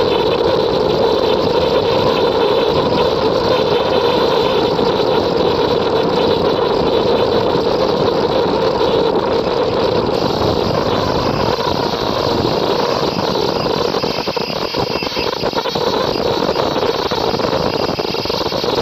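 Multi-head ultrasonic quilting machine running: a loud, steady mechanical noise, with a thin, steady high-pitched whine over it.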